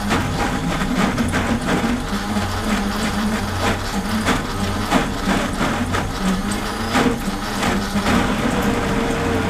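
High-powered countertop blender running under load, churning a thick paste of soaked dried red peppers, its motor note wavering. Irregular knocks come throughout as the tamper works the stiff mix down into the blades.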